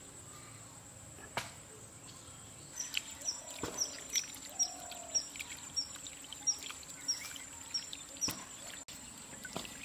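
Water sloshing and trickling as chicken intestines are rinsed by hand in a steel plate dipped in pond water, with a few sharp splashy knocks. From about three seconds in, a bird repeats a short falling chirp two or three times a second; these chirps are the loudest sounds.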